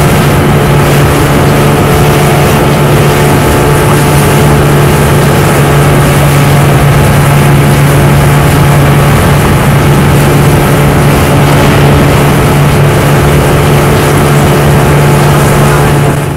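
A wooden fishing boat's engine running steadily at cruising speed, a constant low drone with the rush of wind and water over it.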